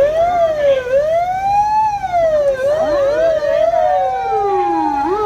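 Several emergency vehicle sirens sounding at once, their wails sweeping up and down over each other. About three seconds in, one siren winds up and holds a steady note. Near the end a faster, short up-and-down siren pattern comes in.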